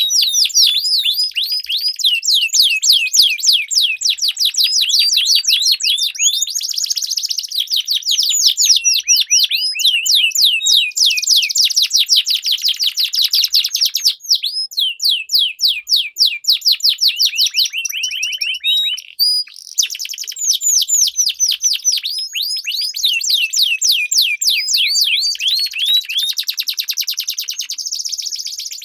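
Domestic canary singing a long song of rapid rolling trills and fast repeated high notes, with a brief pause about two-thirds of the way through.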